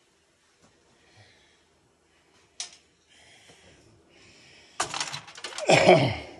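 A metal CPU heat sink with its fan being pried off a desktop computer's processor with a screwdriver: a sharp click about two and a half seconds in, then a loud rattle of clicks and a scrape as it comes free near the end.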